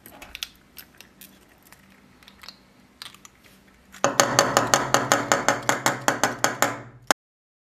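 Jointed segments of a 3D-printed articulated plastic hammerhead shark clicking as it is handled. First come faint scattered clicks, then about three seconds of loud, rapid, even clacking, about seven a second, which cuts off suddenly.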